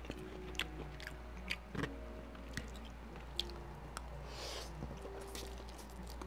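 Close-miked mouth sounds of a man eating spicy noodles: chewing with sharp wet lip smacks every second or so, and a short slurp about four and a half seconds in as noodles are drawn into the mouth.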